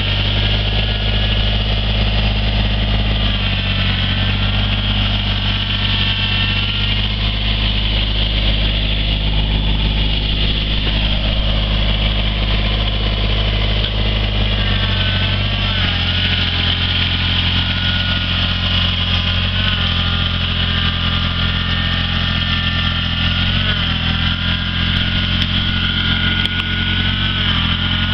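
Kubota BX2370 compact tractor's three-cylinder diesel engine running steadily while the tractor tows a felled tree on a rope from its loader bucket. The engine's pitch shifts a little more than halfway through.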